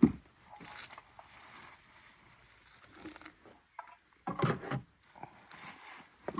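Packaging being handled: rustling and crinkling as parts are unwrapped, with a sharp knock at the start and a louder burst of rustling about four and a half seconds in.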